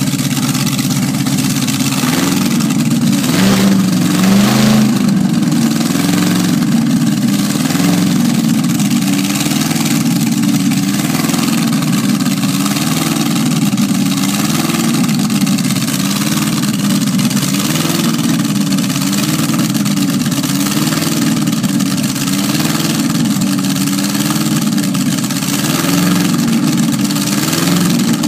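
Old drag car's engine idling, its note wavering in a steady rhythm, with a short rev about three to five seconds in.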